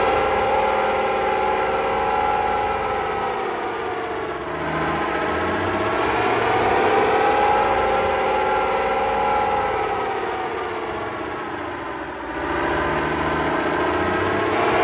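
A pickup truck's engine and exhaust running on a chassis dyno under its map 3 tune, which makes it quite a bit louder than stock. The engine note rises and falls in slow swells: it sags about four seconds in and again near twelve seconds, then climbs back.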